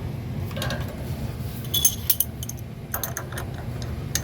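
Light metallic clicks and clinks of a wrench and fittings being worked on a gas water heater's burner assembly, with a cluster of sharp clicks about two and three seconds in, over a steady low hum.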